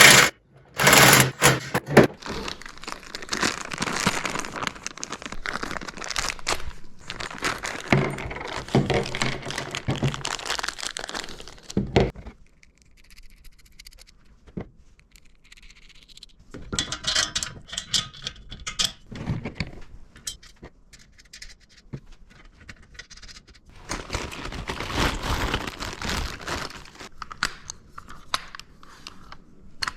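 Metal stand parts and bolts being handled and fitted together: irregular clinks, scrapes and knocks in bursts. The bursts are busiest in the first dozen seconds, then come again at intervals.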